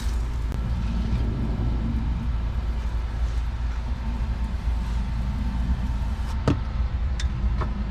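Steady low engine drone of a pressure washer running, with a few sharp clicks near the end.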